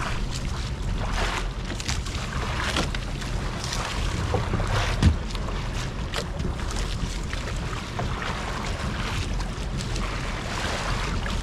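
Wind buffeting the microphone and water washing around a small fishing boat at sea, in uneven surges about every second or two, with one sharp knock about five seconds in.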